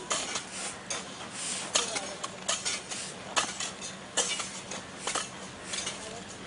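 Garden hand tools striking and scraping dry soil and bricks: irregular clinks and scrapes, several a second, over a faint steady hum.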